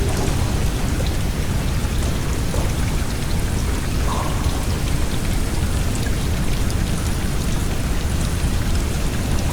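Steady rain noise blended with the whoosh of an electric fan, an even, unbroken wash that is heaviest in the low end.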